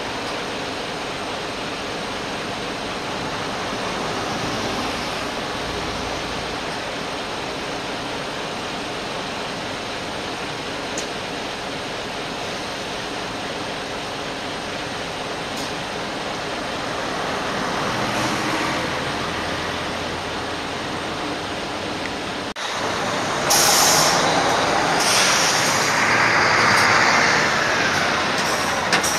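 Highway coach's diesel engine idling steadily at the stop. About three-quarters of the way in, the coach pulls away and passes close by, engine working louder, with several short sharp hisses of air from its brakes.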